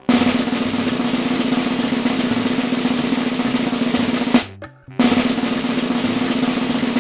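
Snare drum roll, a steady rattle that breaks off sharply about four and a half seconds in, then starts again after a short gap. It is a suspense drum roll leading up to the reveal of the answer.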